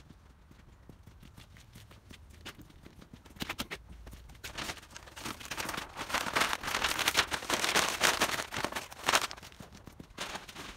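Brown masking paper rustling and crinkling as it is handled and pulled from the truck, with scattered crackles first and a dense, louder stretch of crinkling through the middle that tails off near the end.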